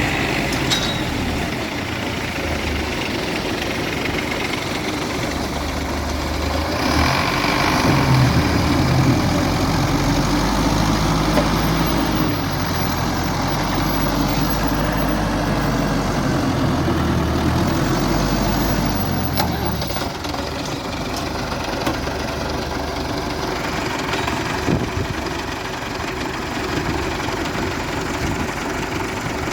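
Farm tractor diesel engines running, working harder with a louder, deeper note for roughly the middle ten seconds before easing back.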